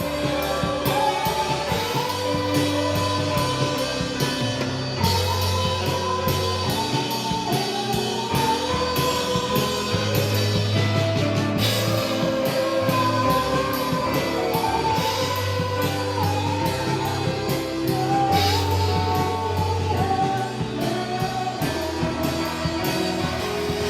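Live worship music: a band with drums and guitar playing a steady beat, with sung melody lines over it.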